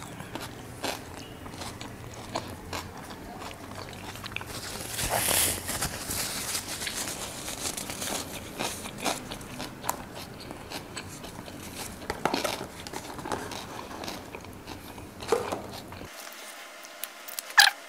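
Close-miked eating of a wrap: biting and chewing with many small wet mouth clicks, louder around five seconds in.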